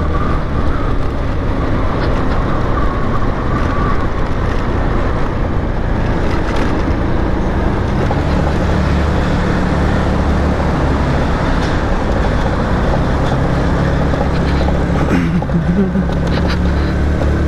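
Italika DS 150 scooter's 150 cc single-cylinder four-stroke engine running steadily while riding, with a steady rush of wind and road noise over it; the engine note shifts partway through as the speed changes.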